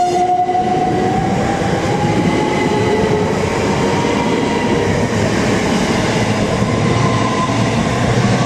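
A pair of Class 357 Electrostar electric multiple units pulling away, their traction motors whining in a tone that rises slowly as the train gathers speed, over loud, steady running noise.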